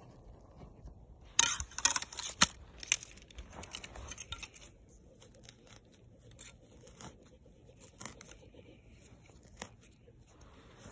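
Close crackling and scraping of grass and handling against the microphone. It is loudest in a burst about one and a half to three seconds in, then goes on as fainter scattered scratching and rustling.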